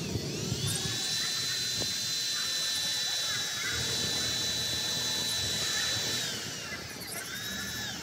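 Electric drill running at full speed as it bores into the sheet roofing of a pigeon cage: a steady high whine that winds down about six seconds in, then a second short run near the end.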